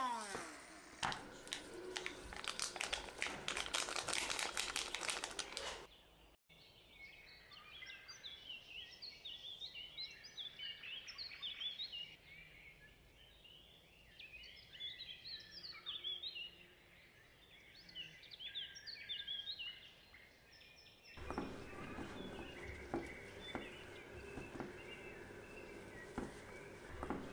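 A metal spoon stirring batter in a glass bowl and then working flour into it. There are clicks and scrapes against the glass at first, then a quieter stretch of short, high squeaks, and from about two-thirds of the way in a steadier, crumbly scraping as the flour is mixed.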